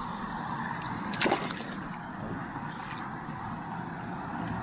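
Steady rush of water pouring over a low spillway weir. A single short splash about a second in, typical of a small snook being let back into the water.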